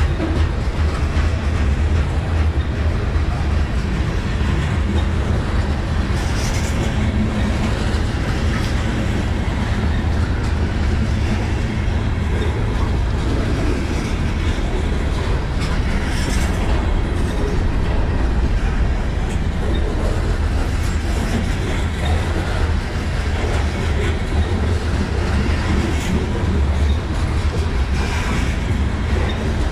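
Covered hopper cars of a Kansas City Southern grain train rolling slowly past on the grade: a steady low rumble of wheels on rail, with a sharp click from the wheels every several seconds.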